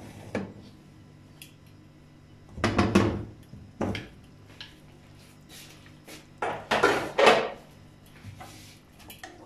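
Aluminium pressure-cooker lid being twisted open and lifted off the pot, with metal scraping and clanking against the rim. The clatter comes in two main bursts, about three seconds in and again around seven seconds, with a few small clicks between.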